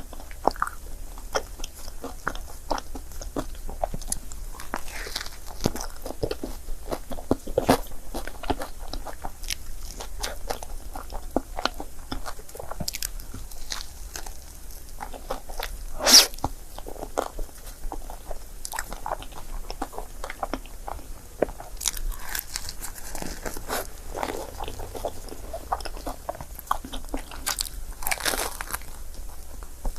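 Close-miked chewing and wet mouth sounds of someone eating a crepe, with irregular small clicks and smacks. One sharp, louder click about sixteen seconds in.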